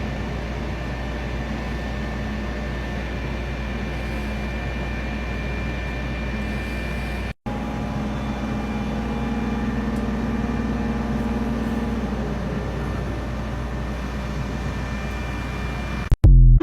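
Steady drone of running machinery in a ship's engine room, with a constant hum. It cuts out for a moment about seven seconds in, and there is a short loud burst just before it ends.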